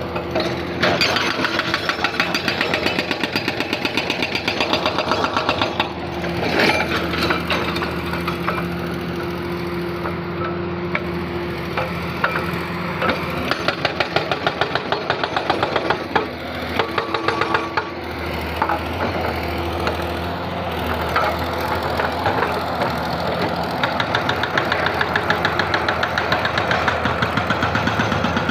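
Excavator diesel engine running steadily under load, with sharp knocks now and then as the bucket strikes a rock to break it.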